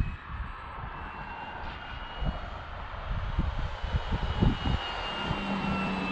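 Electric brushless motor and propeller of a Dynam Cessna 188 RC plane whining as it flies, the whine drifting slightly lower in pitch around four to five seconds in. Gusty wind buffets the microphone throughout.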